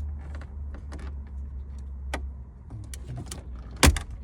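Plastic dashboard trim being pressed back into place: a series of sharp clicks and snaps, the loudest near the end, over a low hum that fades out a few seconds in.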